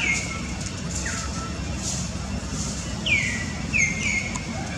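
Baby macaque crying in short, high-pitched, falling squeals, about five of them, the last three coming quickly one after another near the end, over a steady low rumble.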